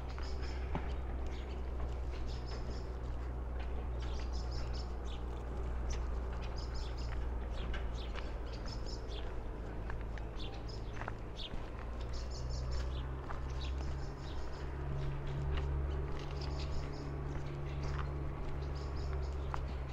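Small birds chirping, short high-pitched bursts of a few notes repeating every second or so, over a steady low hum.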